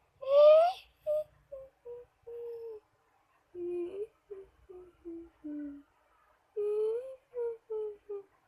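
A whimpering, humming voice-like sound: one loud rising note near the start, then a string of short wavering notes that dip lower in pitch about halfway and climb again near the end.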